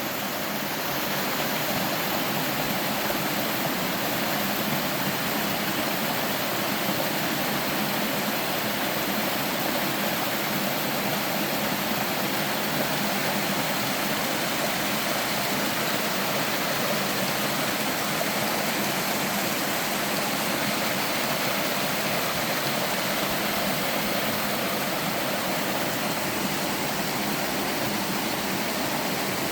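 Small sloping waterfall in a mountain stream, water sliding and splashing down a rock face in a steady, unbroken rush.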